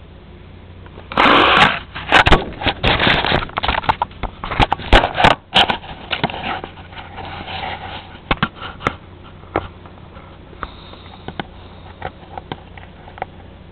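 A cat pawing at a camera strap and bumping the camera: close rustling and knocks on the camera's microphone. It starts about a second in, is busiest for several seconds, then thins to scattered light taps.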